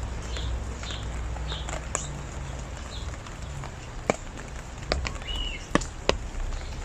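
Steady rain hiss with a handful of sharp taps in the second half, as drops land on something hard. A bird gives short high chirps about twice a second in the first few seconds.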